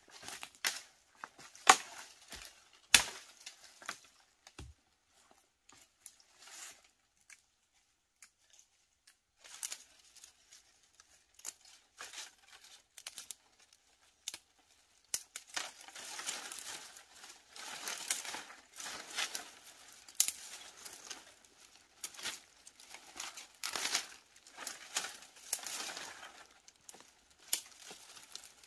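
Dry leaves and twigs rustling and crackling as a small forest plant is pulled and torn at by hand, busiest in the second half. A few sharp cracks come in the first three seconds.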